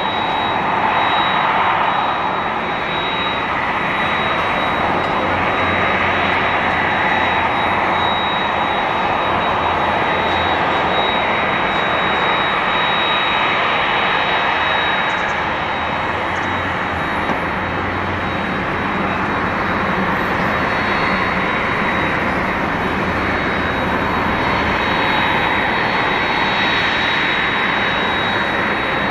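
Boeing 767 jetliner taxiing, its twin jet engines running at low taxi power: a steady jet roar with a thin high whine held on one pitch, swelling and easing slightly.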